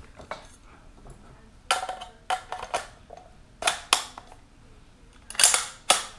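AR-style rifle with a Bear Creek Arsenal 7.62x39 upper being handled to show it is unloaded: a series of sharp metallic clacks and snaps from its action and parts, in three short clusters.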